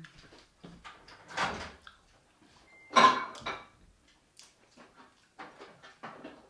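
Scattered household knocks and clatter. The loudest comes about three seconds in, with another about a second in and several fainter taps later.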